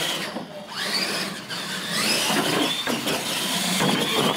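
Radio-controlled monster trucks racing, their electric motors and geared drivetrains whining loudly, rising and falling in pitch as they accelerate and take the jumps.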